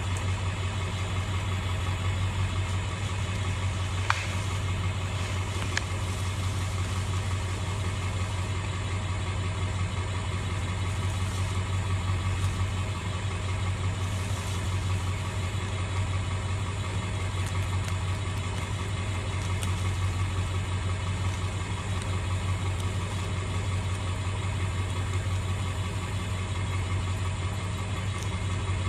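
Irrigation pump motor running steadily, with a constant low hum. Two short sharp clicks come about four and six seconds in.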